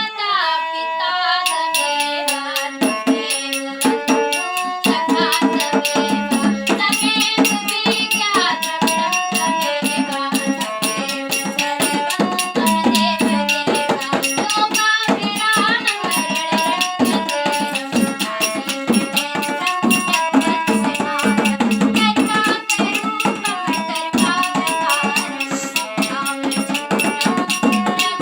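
Indian devotional song: a young girl singing over tabla and shaken rattle percussion, with a melody that steps from note to note and a steady, busy rhythm.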